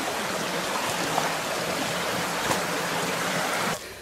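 Shallow rocky stream running steadily over stones, with a few faint knocks of footsteps wading through it. The water sound cuts off abruptly near the end.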